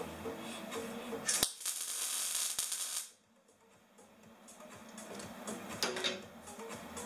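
Welding arc crackling and hissing on a steel exhaust pipe joint: a click about a second and a half in, then a loud burst of about a second and a half that stops suddenly about three seconds in, after which it is much quieter.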